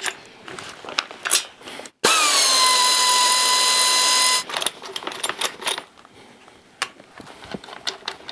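A power tool's motor runs at a steady pitch for about two seconds, dipping slightly in pitch as it starts and stopping abruptly. Light metal clinks of tools and parts being handled come before and after it.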